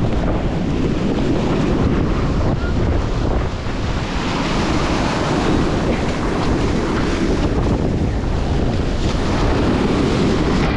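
Wind buffeting the microphone over the steady rush of surf washing up the beach.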